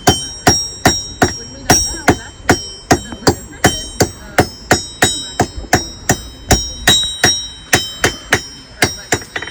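Blacksmith's hammer striking hot iron on an anvil while hand-forging a nail: steady blows about three a second, each with a bright metallic ring, and a few lighter taps between them.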